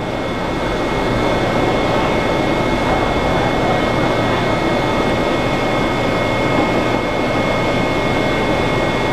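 Inside a 7000-series Metro railcar running into a station and slowing: steady rumble of wheels and propulsion with a faint steady high whine over it.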